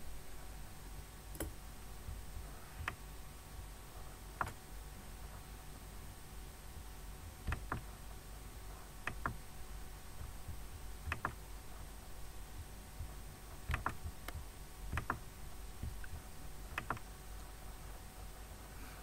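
Computer mouse clicking every second or two, some clicks in quick pairs, over a low steady hum.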